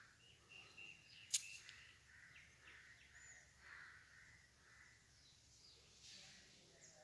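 Faint birds chirping, with a single sharp click about a second in.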